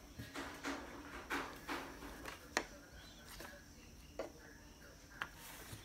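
A paper to-do list and a flower-shaped memo clip being handled on a table: a run of soft paper rustles and taps, with one sharp click about two and a half seconds in and two smaller clicks later.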